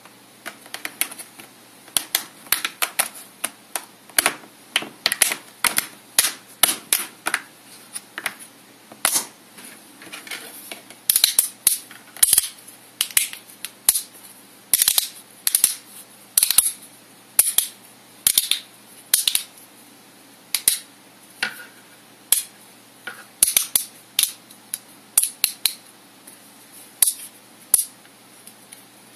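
Small 3D-printed plastic filter-holder parts clicking and clacking as they are handled and fitted together by hand: many sharp, irregular clicks, about one to three a second, some in quick clusters.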